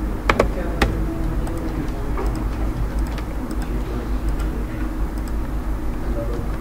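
Several sharp computer mouse clicks in the first second, then fainter ticks, over a steady low hum of room noise.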